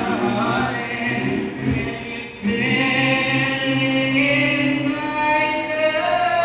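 A group of voices singing together in sustained chords, choir-style. The singing dips briefly a little over two seconds in, then comes back louder on a new chord.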